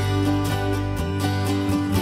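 Background music led by a plucked acoustic guitar playing a steady run of notes.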